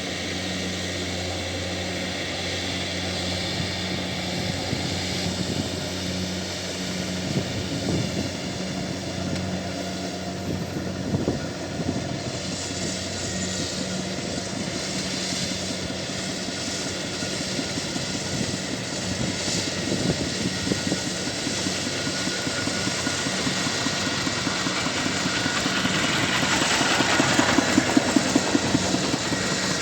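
A Kubota DC70Plus rice combine harvester running at work: a steady diesel engine hum under the rattle of its cutting and threshing gear. A few knocks come about eight and eleven seconds in, and the sound grows louder and rougher, with pulsing peaks near the end.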